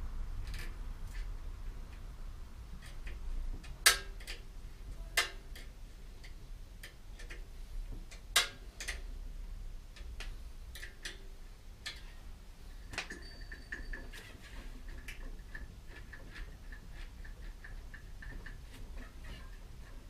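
Scattered clicks and light metallic knocks of a bicycle brake cable and its parts being handled and fitted at a bike in a repair stand, a few of them sharper, the loudest about four seconds in and just after eight seconds. In the later part a faint steady high ringing runs with soft ticks.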